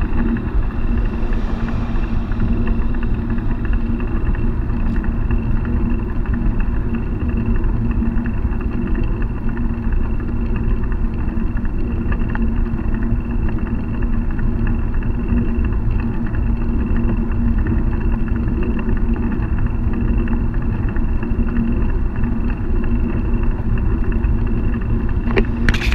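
Steady road noise of a moving bicycle heard from a handlebar-mounted camera: tyres rolling on asphalt and wind on the microphone, with a constant hum, and a few sharp clicks near the end.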